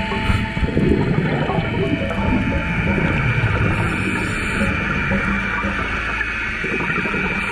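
Muffled underwater sound picked up by a diving camera's microphone: a steady rush of water with gurgling.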